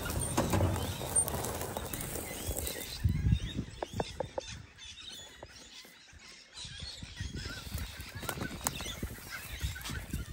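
Outdoor bush ambience: birds calling in the background, with rustling and light clicks from movement through dry grass. The first few seconds are louder and rumbling; after that it is quieter.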